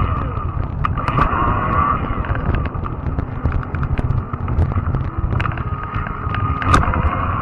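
Wind buffeting the microphone on a moving fat-tire e-bike, over the electric motor's steady whine, which dips slightly in pitch about a second in. Scattered sharp clicks and rattles from the bike over the road run through it.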